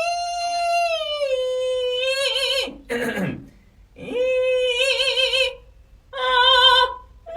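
Singer's vocal warm-up: long high wordless sung notes with vibrato, the first held note stepping down in pitch, then a brief downward swoop. Two further shorter phrases follow after pauses.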